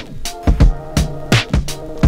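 Background music with a steady drum beat over held electronic tones.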